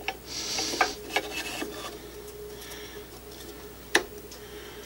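Metal free-float handguard slid over the barrel nut against the AR-15 upper receiver to check its alignment: a short scrape followed by a few light metal clicks, with one sharper click about four seconds in.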